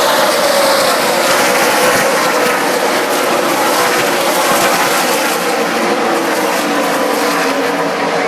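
A pack of NASCAR Truck Series race trucks running at full throttle past the stands, their V8 engines blending into one loud, steady drone with shifting pitches that eases slightly near the end as the field moves away into the turn.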